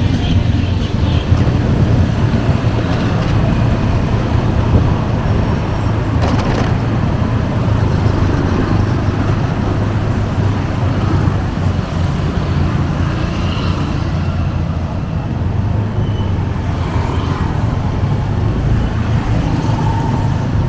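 Steady city road traffic: the continuous rumble and tyre noise of vehicles on a busy street, with a short burst of hiss about six seconds in.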